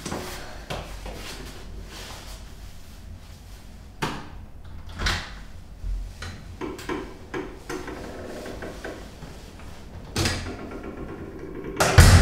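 Footsteps and clicks at a stairwell door, a few knocks and faint tones as the door is worked, then the heavy door slamming shut at the end, the loudest sound.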